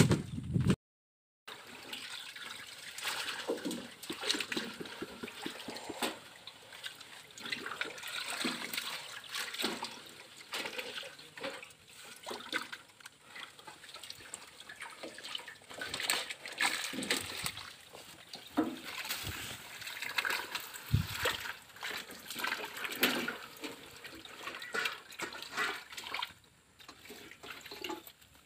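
Water splashing and trickling in small, irregular bursts, as from handling a fishing net in shallow water.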